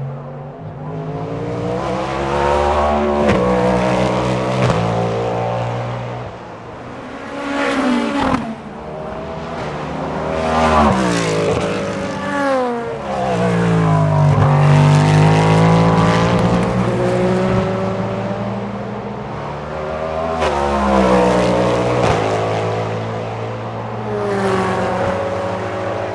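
Cadillac V-Series.R prototype's 5.5-litre V8 racing past, passing several times: the engine note climbs through the gears under acceleration and drops in quick steps on downshifts. The loudest passes come around 11 and 15 seconds in.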